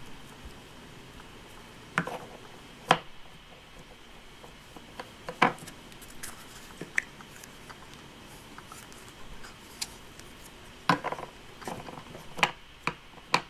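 Scattered plastic clicks and taps of hands handling a hinged clear plastic Play-Doh mold and plastic Play-Doh tubs while pressing yellow and pink Play-Doh into the mold, about half a dozen distinct knocks with quiet handling between them.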